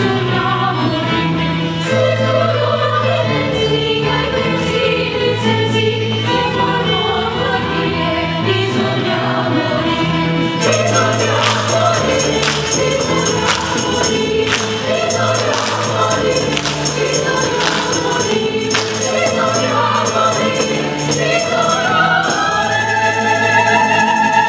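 Choir of young sopranos and mezzo-sopranos singing a baroque passacaglia over a stepping bass line from a small ensemble of strings, guitars and harpsichord. Tambourine and drum join about ten seconds in, and near the end the voices rise into a long held chord.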